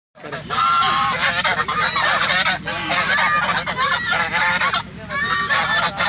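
A small flock of white domestic geese honking, many loud calls overlapping almost without a break, with a brief lull about five seconds in.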